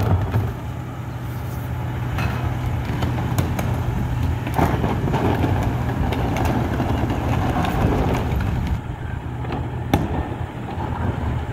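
Rear-loader recycling truck's engine idling steadily, with a few scattered knocks and clatter from plastic recycling carts being rolled and handled at the hopper.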